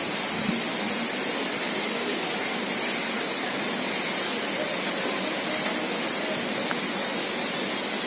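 Steady, even droning rush of a Bugis pitu-pitu kite's sendaren, the bow-string hummer that makes the kite sing, sounding from high overhead.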